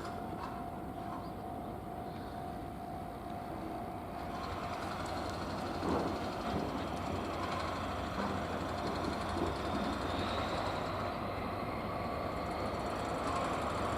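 Freight train running along the line, a steady noise of wheels on rail that grows louder from about halfway, with a few sharp knocks about six seconds in.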